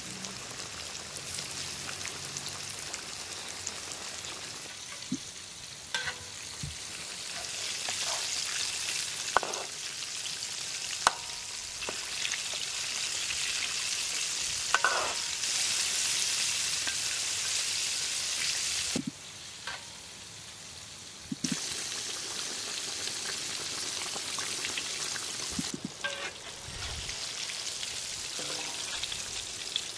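Battered sugar apple balls deep-frying in hot oil in a metal wok: a steady high sizzle. A few short clinks of a metal ladle against the pan are scattered through it.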